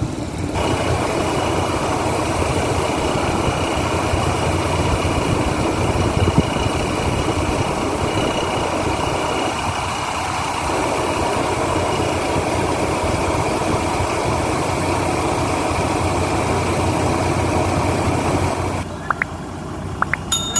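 Thai Seng Yon Kaset rice combine harvester running steadily: a dense machine noise with a thin high whine. Near the end it drops sharply and a few clicks follow.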